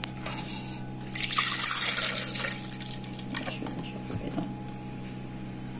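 Cold milk poured into a plastic blender jug: a splashing gush that starts about a second in and tails off after a second and a half, over a steady low hum.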